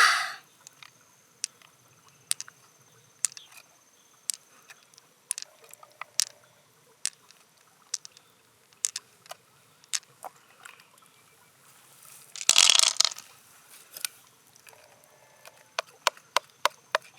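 Shells and tools being handled while opening mussels for pearls: irregular small clicks and taps, with one louder scrape lasting about a second near the end.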